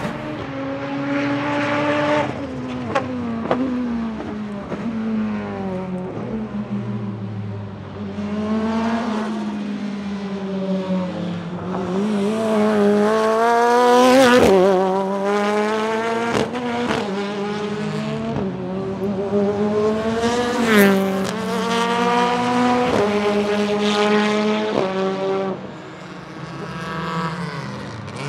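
Turbocharged BMW S14B20 2.0-litre four-cylinder in a BMW E36 time attack car, heard from trackside at speed. The engine's pitch climbs repeatedly and drops abruptly at each sequential gearshift, with a few sharp cracks. It is loudest as the car passes close about 14 seconds in, the pitch falling as it goes by.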